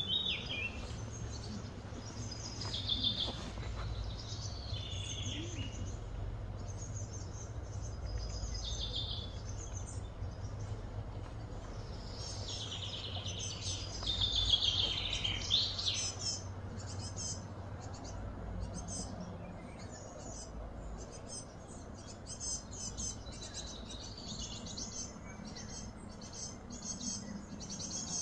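Outdoor ambience of wild birds chirping and calling, with a run of louder chirps about halfway through. Rapid insect-like buzzing joins in the second half over a steady low hum.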